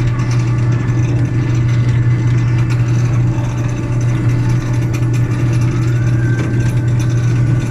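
Amusement-park ride train running with a steady low mechanical hum. A faint rising whine comes in about six seconds in.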